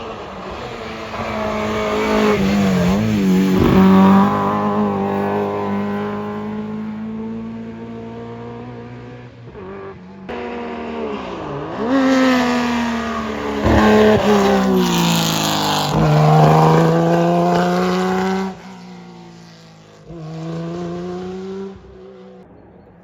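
Historic rally cars taking a corner one after another, two in full and a third briefly near the end. Each engine drops in pitch as the car brakes and changes down, then climbs in pitch as it accelerates away, with a few sharp cracks along the way.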